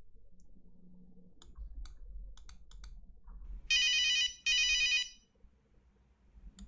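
Nokia 3310 monophonic ringtone: two short, loud bursts of a fast warbling trill, about half a second each, preceded by a few faint clicks.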